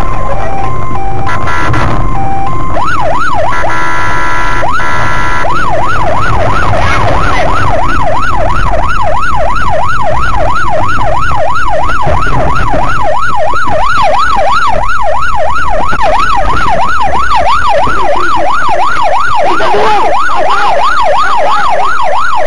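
Police siren, first alternating between two notes, then from about three seconds in switching to a fast yelp that rises and falls two to three times a second. Underneath runs a steady low rumble of vehicle and road noise.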